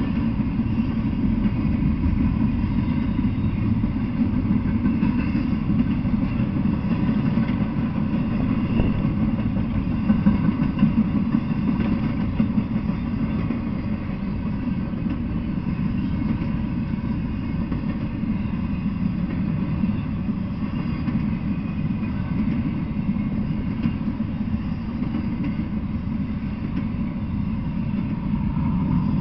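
A freight train of empty container well cars rolling steadily past, making a continuous low rumble of steel wheels on rails.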